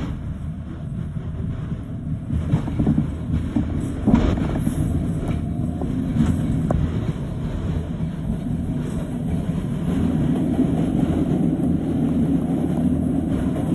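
New York City subway train on the 1 line running on the elevated tracks, heard from inside the car: a steady rumble of wheels on rails with a few sharp clacks. It grows louder in the last few seconds as another train runs alongside on the next track.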